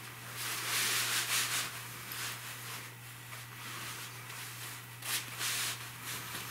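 Bug netting rustling and swishing as it is gathered and spread out by hand, in swells that are loudest about a second in and again around five seconds.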